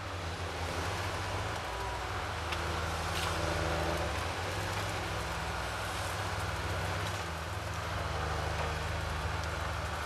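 Diesel engines of heavy forestry machines running steadily, a tracked feller buncher and then a wheeled log forwarder working its hydraulic crane, with a few light clicks and clanks.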